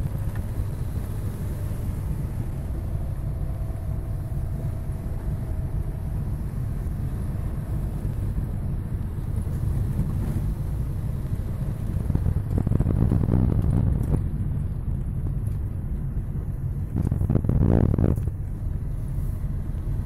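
Car cabin noise while driving: a steady low rumble of engine and tyres on the road. It swells louder twice, about two-thirds of the way through and again near the end.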